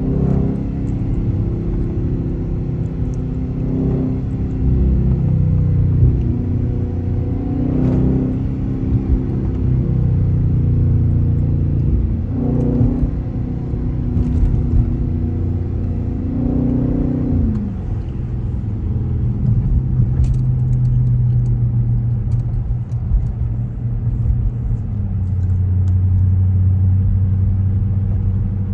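Dodge Scat Pack's 6.4-litre HEMI V8 under way. The revs rise and fall several times in the first half, then settle to a steady low drone.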